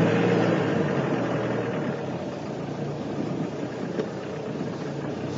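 Open safari game-drive vehicle's engine running as it drives along a dirt track. It is loudest at the start and eases a little after a couple of seconds.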